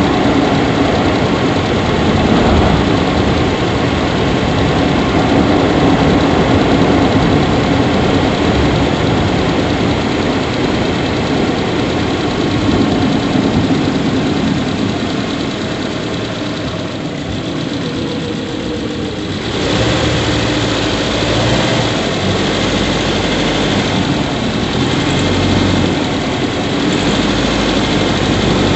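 Subaru Levorg 1.6GT-S's turbocharged 1.6-litre flat-four idling in the engine bay, a steady mechanical running sound with a constant hum; the owner is chasing an abnormal squeak ("kyuri") from the engine room that grows louder as the engine keeps running. The sound dips and shifts about two-thirds of the way through.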